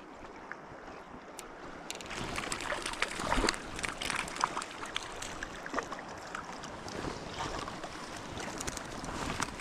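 River water running and splashing, growing louder about two seconds in with many small splashes and gurgles.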